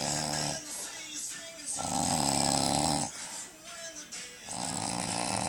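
A man snoring really loud in his sleep: three long snores in a steady rhythm, about two and a half seconds apart.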